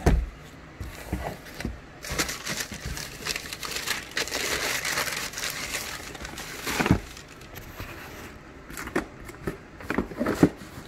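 Tissue paper crinkling and rustling as it is pulled back from a pair of sneakers in a shoebox, loudest in the middle. Scattered short handling knocks and rustles follow near the end as a shoe is lifted out.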